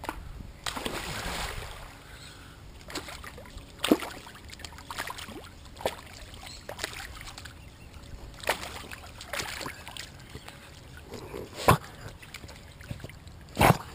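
Pool water sloshing and splashing right at a GoPro camera at the water's surface while a small terrier swims and paddles, with sharp splashes every few seconds, the loudest near the end.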